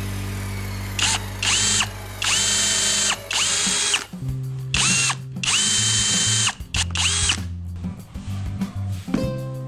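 Cordless drill boring into a small wood block, its motor triggered in about seven short bursts; each burst spins up to a steady whine and winds back down.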